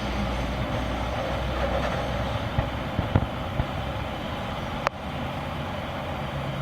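BNSF double-stack intermodal train rolling past with a steady rumble. A few sharp clicks come in quick succession near the middle, and one more sharp knock comes about five seconds in.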